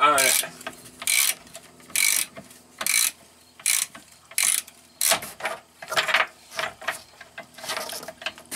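Hand ratchet wrench clicking in repeated strokes, about one every second at first, then quicker, shorter clicks in the second half.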